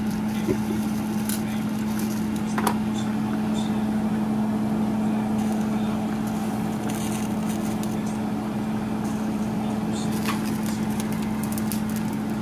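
A steady mechanical hum, like a running motor, with a few faint clicks.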